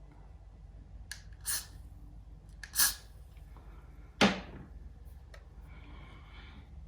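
Close handling noises: a few brief rustles, a louder hiss-like rustle, and a sharp knock a little past the middle, over a low steady hum.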